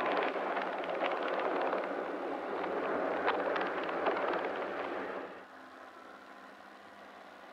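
Antwerp PCC tram passing close: a loud rushing rumble of wheels on rail with scattered clicks. About five seconds in it cuts off suddenly to a faint hiss with a low hum.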